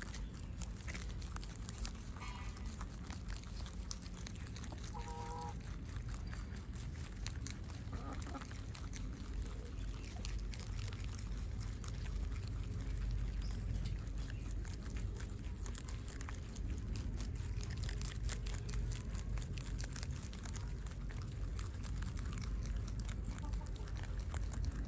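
Several rabbits chewing and crunching crisp leafy greens and stems: a dense run of fine, rapid crisp clicks, strongest in the second half. Short farm-fowl calls sound twice in the first few seconds, over a steady low background rumble.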